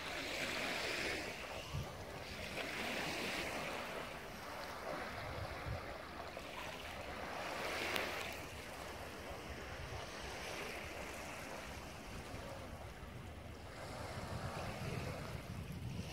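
Small waves washing in on a sandy shore, a hiss that swells and fades every couple of seconds, with low wind rumble on the microphone.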